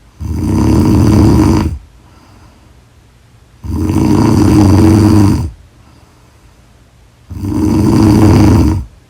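A person snoring loudly in deep sleep: three long, rasping snores about three and a half seconds apart, each lasting about a second and a half, with quiet breathing between them.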